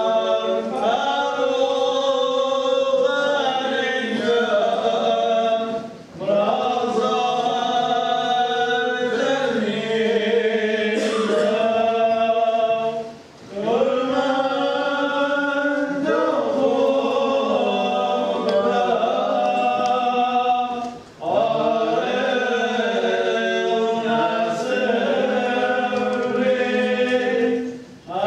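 A choir singing a liturgical chant in four long phrases, with short breaks for breath between them.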